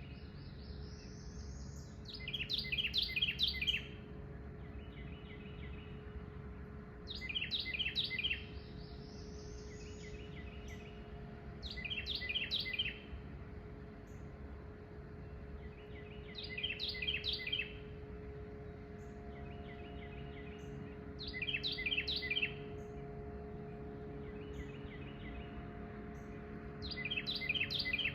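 A songbird sings the same short, rapid song six times, about once every five seconds, some songs opening with a rising whistle. Beneath it runs a steady low engine hum.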